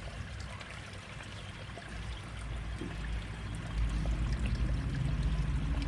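Water steadily pouring and trickling into a garden pond, with a low rumble growing louder in the second half.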